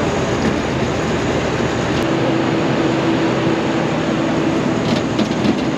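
Steady drone of a parked jet airliner on the apron, its engine or auxiliary power unit running, with a steady hum at one pitch from about two seconds in.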